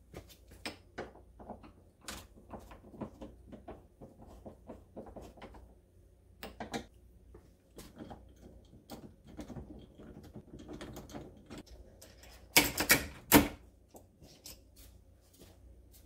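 Hand screwdriver backing out the screws of a brass doorknob and its latch plate, with irregular metal clicks and rattles of the knob and latch hardware, and a louder clatter a few seconds before the end.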